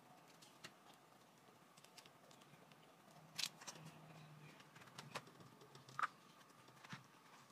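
Near silence with a few faint knocks and rustles of food containers being handled: a paper cup of mac and cheese lifted and set back down on a table, with a soft knock about six seconds in.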